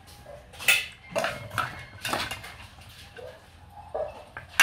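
Metal spoon and wooden chopsticks clinking and scraping against a metal mixing bowl and a plate while salad is served out, in several sharp clinks, the loudest about a second in and near the end.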